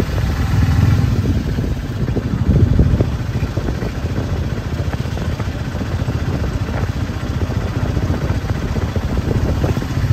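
Steady low rumble of a running vehicle, with a rough, fluttering texture and no clear change.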